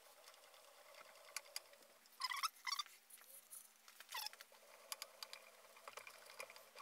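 Faint, intermittent scratchy scraping and light clicks from the DRO read head being slid back and forth along the scale extrusion by hand, the clearest about two seconds in and again near four seconds.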